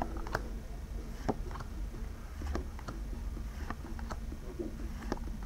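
A Pokémon trading card booster pack being opened and its cards handled: scattered, irregular soft clicks and rustles over a low steady hum.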